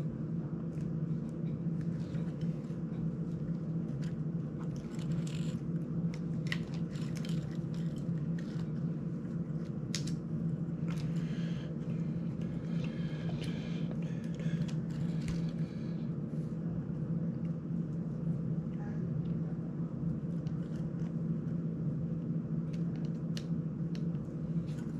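Small clicks and rustles of a plastic drone prop-guard frame and its screws being handled and fitted by hand, busiest in the first half, over a steady low hum.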